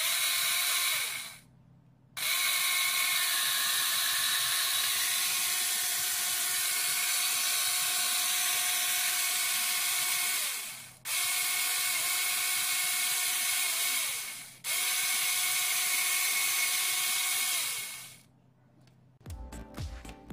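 A small electric motor whirring in several long runs, starting abruptly and stopping or winding down between them, with a steady hiss and a few fixed whining tones.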